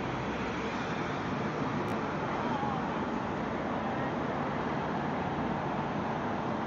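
Steady city street ambience: a hum of road traffic, with faint voices of passersby.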